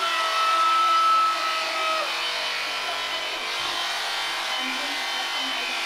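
Electric sheep-shearing handpiece running steadily, its cutter buzzing and rasping as it cuts through the fleece. A steady higher tone holds over it for about the first two seconds.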